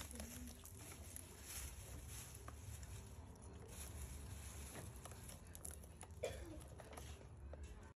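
Faint rustling and light ticks of a banana-fibre strip being wrapped and tied by hand around a banana trunk, over a low steady rumble. One short, sharper sound about six seconds in.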